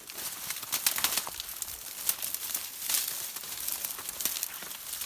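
Tall, dry reeds rustling and crackling as a person pushes through them: a dense, irregular run of snaps and swishes.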